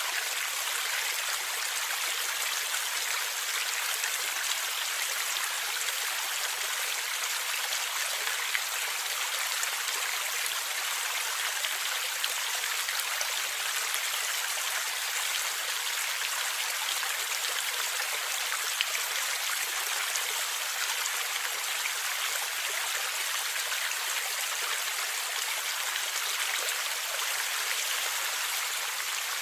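Forest stream flowing and gurgling steadily.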